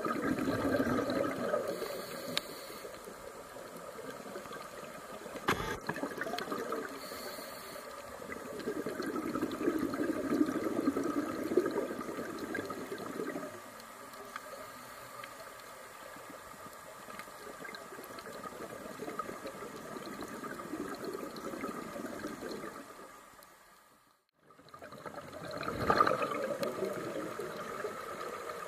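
Underwater sound of scuba breathing: exhaled bubbles rush out of a regulator in swells a few seconds long, with quieter stretches between. The sound drops out briefly about four seconds before the end.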